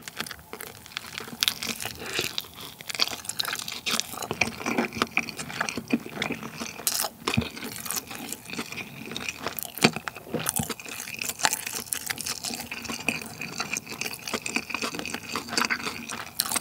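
Close-miked chewing of a mouthful of spicy dumpling: a steady run of small mouth clicks and smacks.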